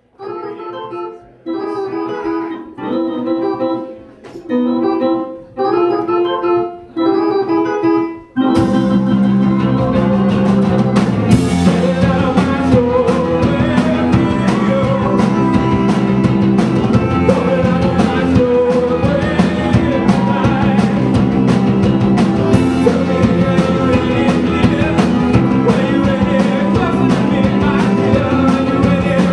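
Hammond B3 organ playing a run of held chords with short gaps between them, then a full rock band comes in about eight seconds in and plays on with the organ.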